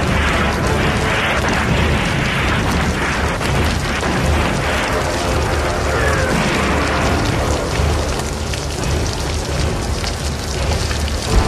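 Raw, lo-fi black metal demo recording: distorted guitars, bass and drums playing continuously as one dense wall of sound.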